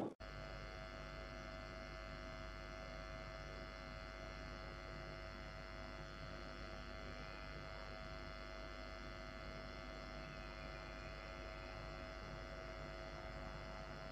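Faint, steady electrical hum made of several held tones, unchanging throughout, with no other events.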